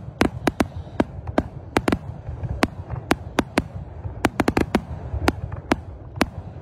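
Aerial fireworks display: a rapid, irregular string of sharp bangs as shells and cake tubes fire and burst, several a second, over a continuous low rumble.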